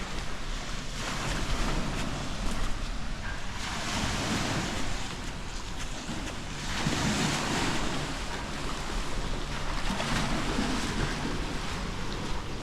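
Small waves breaking and washing up the sand, the hiss swelling and falling back about four times, with wind rumbling on the microphone.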